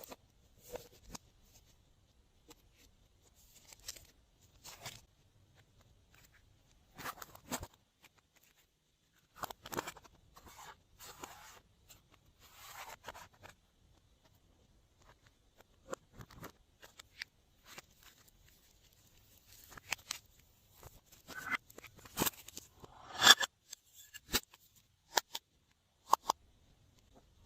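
Glossy slime being worked by hand: irregular sticky clicks and crackling bursts with short quiet gaps between them. The loudest burst comes about three quarters of the way through.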